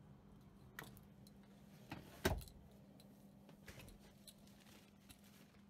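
Scattered faint clicks and knocks of hands on the plastic rear centre console of a car interior, the loudest a single knock a little past two seconds in, over a faint steady low hum.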